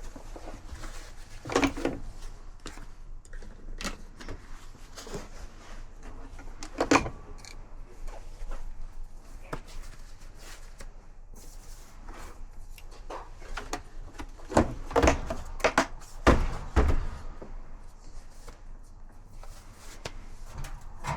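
Scattered clunks and knocks of dryer parts and panels being handled during repair: single knocks about a second and a half in and about seven seconds in, then a cluster of heavier clunks a little past the middle.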